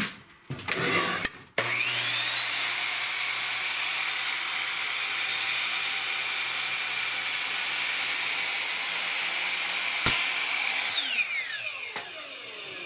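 A few knocks, then a Ryobi sliding miter saw with a 40-tooth blade starts with a rising whine and runs steadily as it cuts through a glued-up red oak and walnut board. About eleven seconds in, the motor is let go and the blade winds down with a falling whine.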